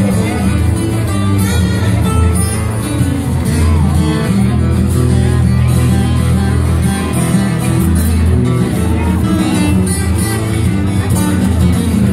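Music with guitar and a steady bass line.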